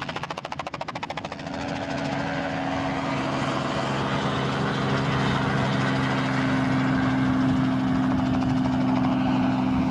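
Robinson R44 helicopter flying low. Rapid rotor chopping in the first second or so gives way to a steady engine and rotor drone that slowly grows louder.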